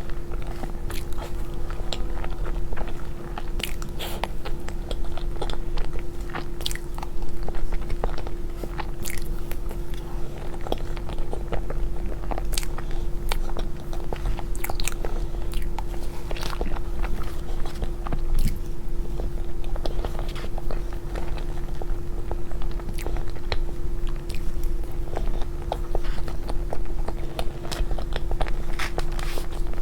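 Close-miked eating sounds of a person eating cake: bites, chewing and many small sharp mouth clicks throughout, over a steady low hum.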